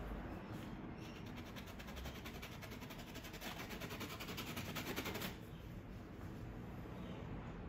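Rapid, even tapping, about ten strokes a second, from about a second in until it stops about five seconds in: a paintbrush dabbing against a stretched canvas to stipple in highlights.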